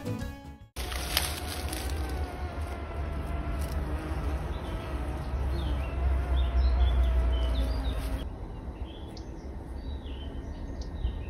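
Summer garden sound after a brief gap: a steady, slightly wavering insect buzz, with small birds chirping high and short from about four seconds in, over a low rumble. The buzz and rumble drop away about eight seconds in, leaving the bird chirps.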